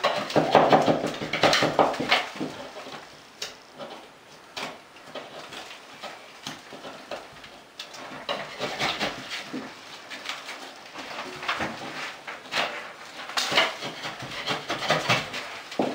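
Drywall joint tape and popcorn ceiling texture being torn and scraped away from the ceiling corner by hand: irregular rasping, crackling and ripping of paper and crumbling texture, in spells that come loudest at the start and again near the end.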